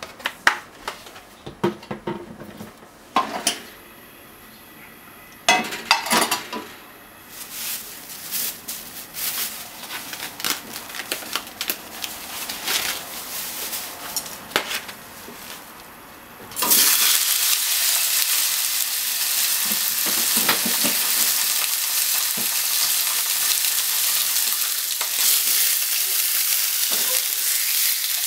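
Clicks and knocks of handling for about the first sixteen seconds. Then pork belly slices hit hot oil in a frying pan and start a sudden, loud, steady sizzle that goes on to the end.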